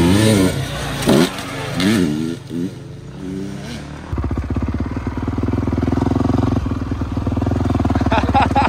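Motocross bike engines revving hard. For the first few seconds the pitch climbs and drops sharply several times as the bikes accelerate and shift. About four seconds in it changes to a steadier engine note that slowly rises.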